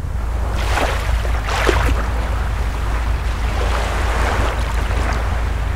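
Sea waves and wind: a steady deep rumble with surges of surf washing in every second or two.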